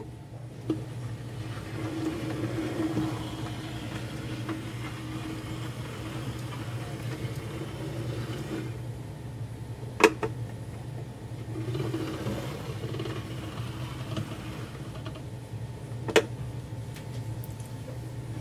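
Hornby Class K1 OO gauge model steam locomotive running slowly on its test track: a steady low whir of the small electric motor and gears, with two sharp clicks about ten and sixteen seconds in.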